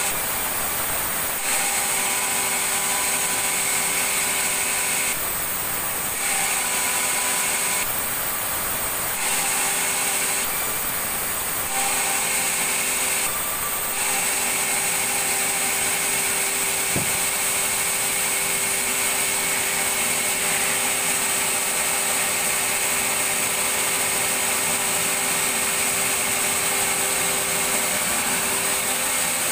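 Sawmill saw running with a steady whine and hum. For the first half it shifts back and forth every second or two, then holds steady.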